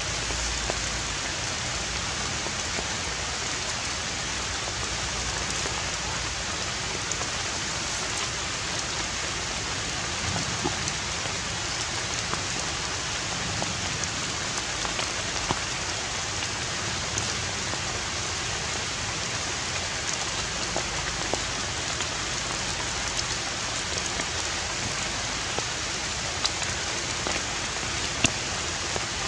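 Steady, even hiss with scattered faint ticks.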